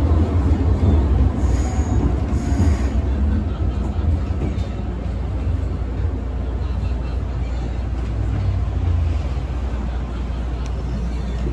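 Hong Kong MTR Island Line M-train running through the tunnel: a steady low rumble of wheels and traction motors under a wash of rail noise, a little quieter after the first few seconds.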